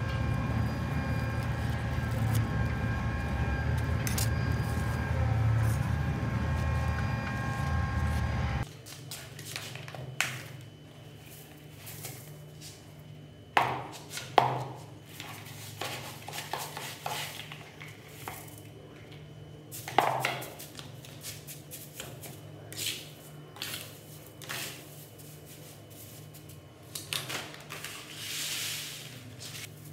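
A steady mechanical hum with several held tones that cuts off suddenly about nine seconds in. It gives way to scattered scrapes and knocks of a small trowel digging potting soil out of a plastic bucket, and then a hiss of soil being poured from a bag onto a pile near the end.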